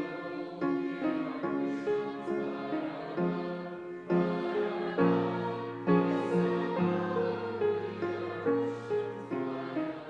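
Grand piano playing a hymn in chords, with struck notes in a steady rhythm and some held bass notes.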